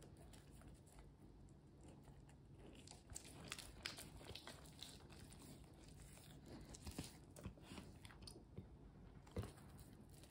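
Golden retriever gnawing kernels off a cob of corn held in a hand: soft, crisp crunches and bites in quick, irregular succession, sparse at first and much busier from about three seconds in.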